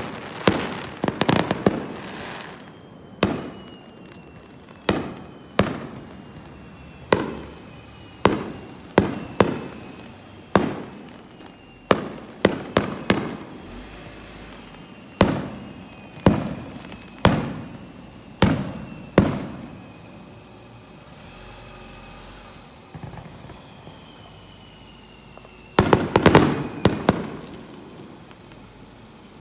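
Aerial fireworks bursting at a distance: a long, irregular series of booms, each trailing off in echo, with a quick cluster of bursts near the end.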